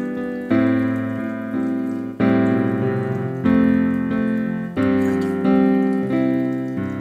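Background piano music: a new chord struck about every second, each one dying away before the next.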